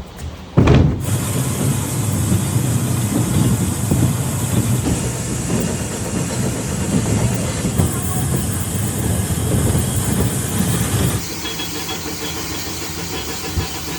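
Factory machinery running: a steady loud rumble with hiss, starting with a thump about half a second in and dropping in level a little after 11 seconds.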